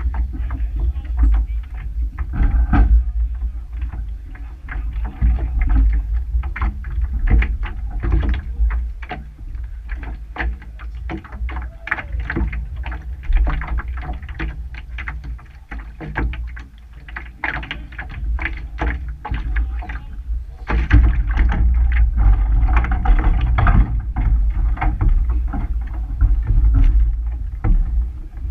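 Irregular knocks, clunks and rattles of oars and a rowing shell's fittings as a crew steps in and sets their oars from a wooden dock, over a steady low rumble on the boat-mounted microphone. The rumble and clatter grow louder about three quarters of the way through.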